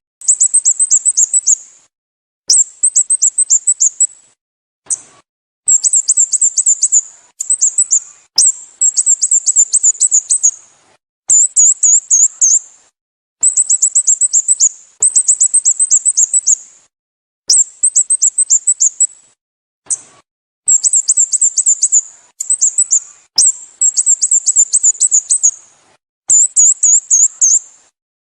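Sooty-headed bulbul calls played from a recording: short phrases of rapid, high-pitched chirping notes, one after another with abrupt silent gaps between them.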